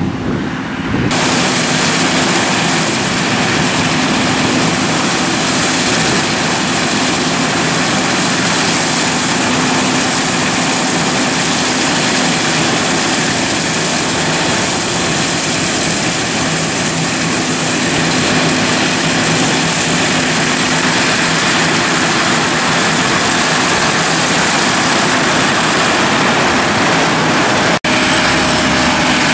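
John Deere S680 combine harvester running steadily as it direct-cuts canola with a MacDon draper header: a steady engine drone under a loud, even machinery hiss. The sound drops out for an instant near the end.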